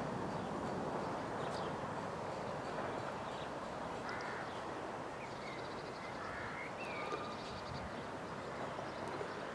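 Faint outdoor ambience: a steady low hiss with a few short bird chirps and calls in the middle.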